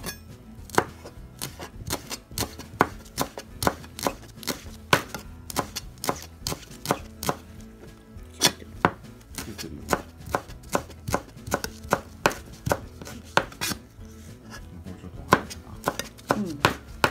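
Kitchen knife chopping shiso leaves on a plastic cutting board: a steady run of sharp knocks, about two or three a second, with a brief pause near the end before the chopping resumes. The blade is dull, by the cook's own complaint that it won't cut.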